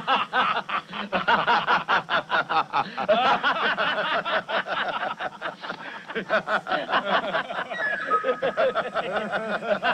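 A group of men laughing together in rapid, repeated bursts.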